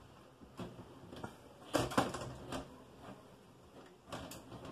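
Irregular clicks and knocks of a computer case and its cables being handled, with the loudest cluster of knocks about two seconds in and another single knock near the end.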